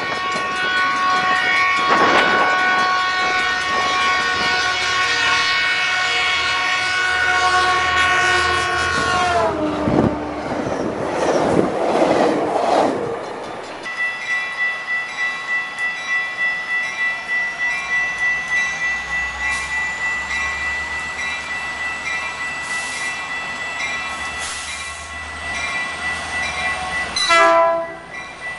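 A train horn sounds a long chord that drops in pitch about nine seconds in as the locomotive passes, followed by the rumble of the train going by. Then a locomotive bell rings steadily as a Metrolink commuter train pulls into the station, with a short horn blast near the end.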